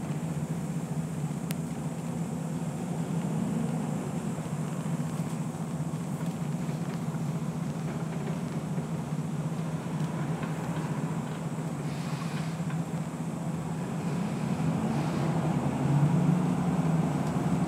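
Steady low rumble of bus engines running in an underground bus station, growing louder near the end.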